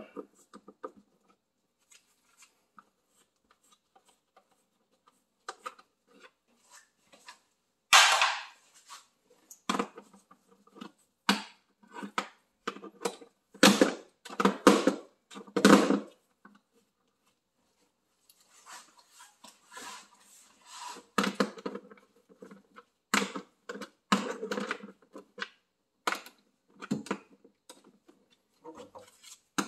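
Hand-tool work on a car's engine: scattered clicks, knocks and rattles of tools and parts being handled, coming in clusters with a denser stretch of rattling about two-thirds of the way through.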